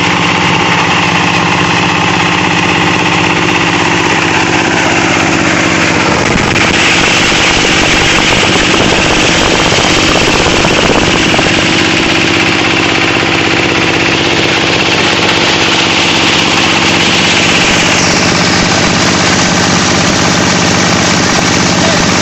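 Plastic shredder machine running with a steady motor hum. From about six seconds in until about eighteen seconds, a harsher, rattling chopping noise joins it as material goes through the cutter.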